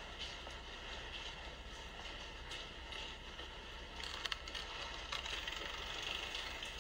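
Quiet outdoor ambience: a steady hiss with a low hum beneath it, and a few light clicks and rustles about four to five seconds in.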